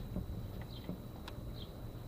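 A bird chirping outdoors: short high chirps repeating about every three-quarters of a second, over faint clicks and rustling of hands working a plastic LED light strip. A thin steady high whine runs underneath.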